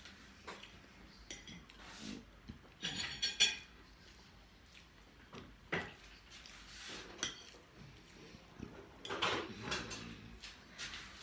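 Metal fork clinking and scraping on a plate while eating, with a cluster of sharp ringing clinks about three seconds in and more scraping near the end.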